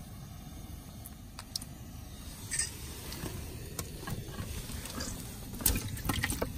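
Soft handling clicks and rustles as a caught fish is unhooked, then a sharp knock on a plastic box about a second before the end, followed by a quick run of knocks and taps.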